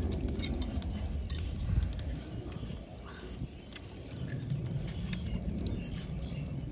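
Snail shells being handled and picked at with thorns, giving scattered light clicks and ticks over a steady low rumble, like wind on the microphone.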